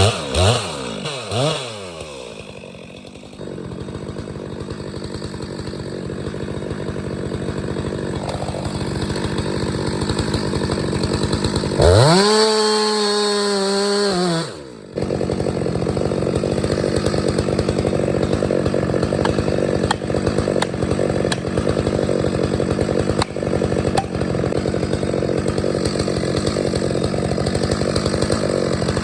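Gasoline chainsaw cutting into a tree trunk, the engine running steadily and labouring under load in the cut. About twelve seconds in it revs up high and free for a couple of seconds, drops off briefly, then goes back to cutting.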